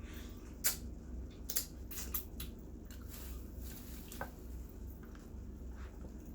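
Hands pulling apart a Costco rotisserie chicken: wet squishing and tearing with a few sharp clicks, over a steady low hum.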